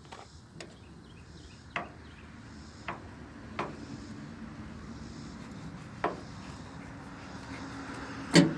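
Knife working a spotted bass fillet on a cutting surface, skinning it and trimming off the gut sack: scattered light clicks and taps of the blade, with one loud knock near the end.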